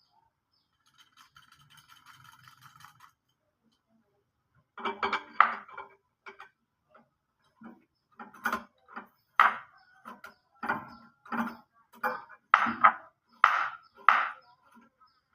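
A series of sharp metallic clinks and knocks, about a dozen at uneven intervals, each ringing briefly: tools and metal parts being handled and tapped while a refrigerator condenser is fitted. A faint rattling buzz comes before them.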